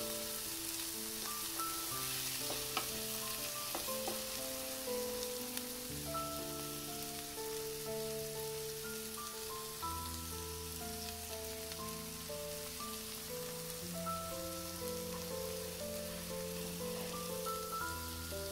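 Chopped onions and whole spices sizzling steadily as they fry in hot oil in a kadai, stirred with a spatula at the start. Soft background music with a slow melody and a bass note that changes every few seconds plays over the sizzle.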